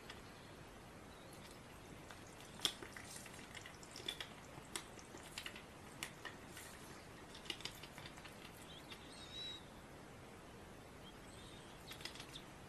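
A white domestic duck nibbling and preening with its bill: faint, irregular little clicks and snaps, clustered in the first two-thirds and again near the end.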